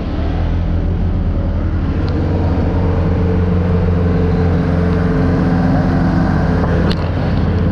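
Honda PCX scooter's single-cylinder engine running under way at low speed in traffic. It gives a steady engine note with a noise haze over it that grows slightly louder through the first few seconds.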